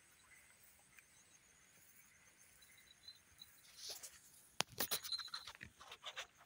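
Faint outdoor hiss, then from about four seconds in a cluster of scratchy crackles and rustles: footsteps brushing through grass and rice stalks on a paddy-field path.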